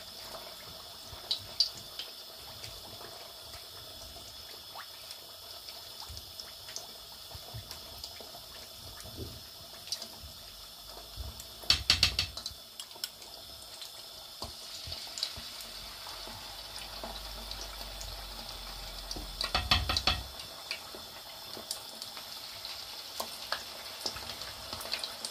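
Battered chicken drumsticks deep-frying in oil at about 130 °C for the first fry: a steady sizzle with scattered pops. Twice, about twelve and twenty seconds in, the crackling flares up loudly as more drumsticks are lowered into the oil.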